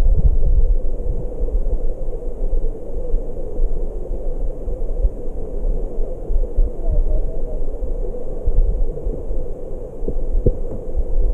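Stream water heard from under the surface through a submerged camera: a steady, muffled low rumble of flowing water with a few soft low thumps.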